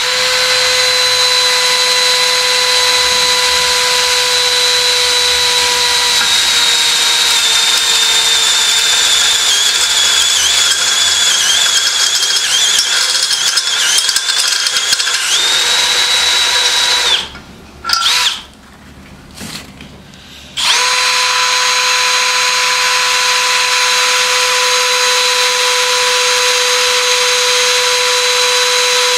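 Milwaukee 2802 cordless drill running a step drill bit into steel tubing: a steady motor whine whose pitch sags a little under the cutting load. It stops for about three seconds two-thirds of the way through, with one short blip, then runs steady again.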